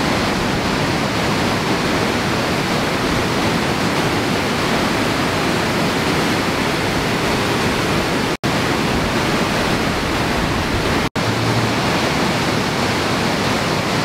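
Afqa waterfall and its white-water cascade rushing over rocks: a loud, steady rush of falling water. The sound drops out for an instant twice, about eight and eleven seconds in.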